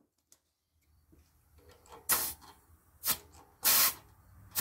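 Three short bursts of compressed air hissing at a tire valve stem, the last one the longest, as the tire pressure is checked and topped up, followed by a click near the end.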